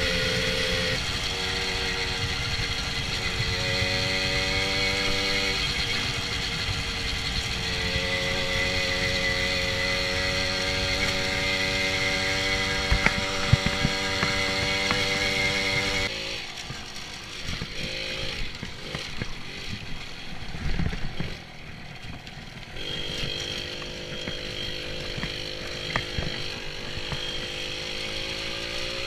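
Moped engine running while ridden, its steady note shifting in pitch a few times with speed, with wind rush on the microphone. About halfway through the sound drops and turns rough and noisy, with a few thumps, for several seconds, then the engine note returns.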